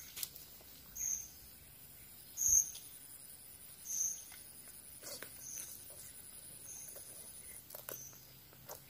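A bird chirping: short high chirps repeating about every second and a half, over a steady high-pitched insect drone.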